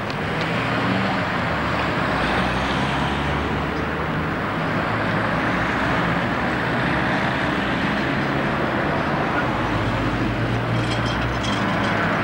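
Street traffic with the low, steady running of a double-decker bus's diesel engine.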